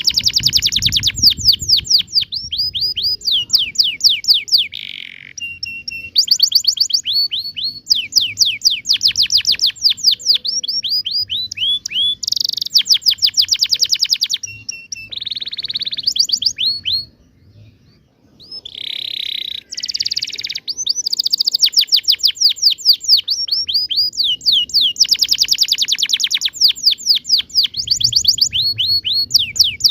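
Domestic canary singing a long, rolling song: phrase after phrase of rapid, repeated, high downward-sliding notes and fast trills, with one brief pause a little past the middle.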